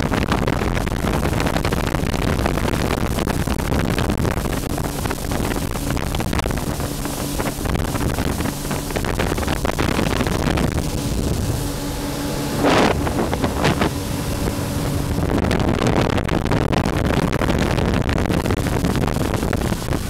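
Jet ski engine running under way, mixed with heavy wind rush on the microphone and water noise; the engine note shows most clearly through the middle. Two brief, louder noises come a little past the middle.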